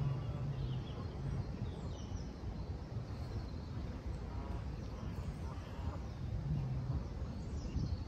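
Outdoor lakeside ambience: a steady low rumble, from wind or distant traffic, with scattered short bird calls over it.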